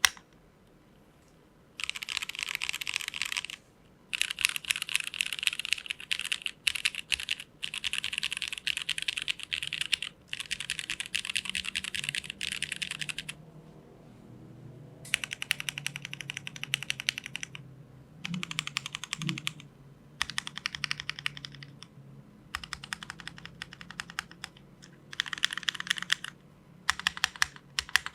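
Geonworks F1-8X V2 mechanical keyboard being typed on fast, with Cherry MX Clear-top Nixie switches (lubed, filmed and spring-swapped) on an aluminium plate under GMK Trackday keycaps. The clacking comes in runs of several seconds with short pauses between them.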